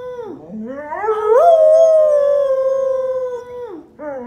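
English Springer Spaniel howling. One howl trails off in a falling slide, then the dog starts a long howl that rises in pitch, holds steady for a couple of seconds and falls away near the end, and a new rising howl begins at the end.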